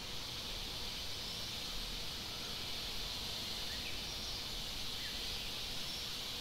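Steady high-pitched insect drone of forest ambience, with a few faint short chirps in the middle.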